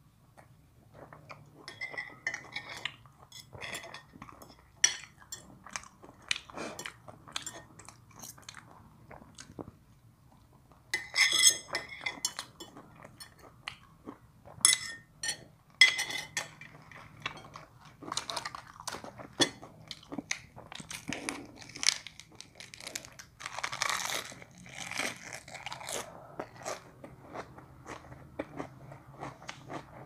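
Close-up chewing and crunching of mouthfuls of food, including fresh lettuce and herbs, with many small crackly bites throughout. A spoon and fork clink against ceramic plates a few times around the middle.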